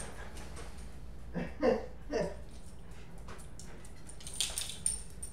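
A small dog gives three short whines about a second and a half to two seconds in. Near the end come light clicks and a high jingling as it trots across a tile floor.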